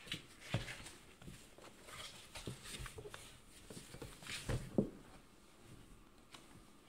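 Cats playing in and on a cardboard box: irregular scratchy scrabbling on the cardboard and light thumps. The loudest thump comes about two-thirds of the way through.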